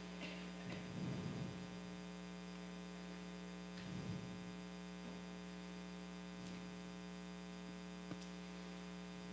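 Steady electrical hum from a sound system, with a few faint brief room noises and a single sharp click about eight seconds in.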